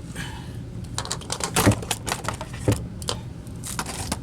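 Irregular clicks and rattles of small hard objects being handled and moved about, the loudest two knocks about a second apart in the middle, over a low steady hum.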